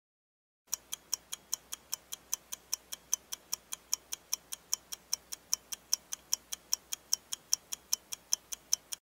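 A mechanical watch ticking fast and evenly, about five ticks a second. The ticking starts about a second in and cuts off sharply near the end.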